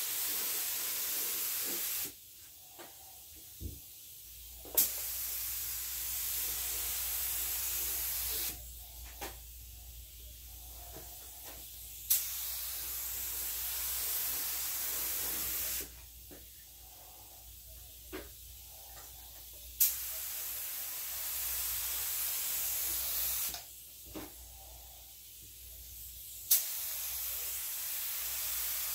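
SprayIt LVLP gravity-feed paint spray gun hissing compressed air and paint in repeated passes of about four seconds each, a sharp click at the start of each pass, with quieter pauses of about three seconds between them. A low steady hum comes in about four seconds in.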